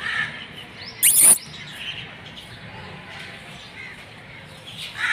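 Small birds chirping, with one short, loud, shrill call about a second in and another brief call near the end.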